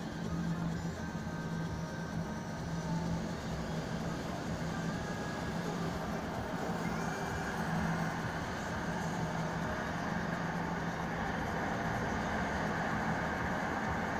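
Steady drone of a moving car heard from inside the cabin: engine hum and road noise with no sudden events.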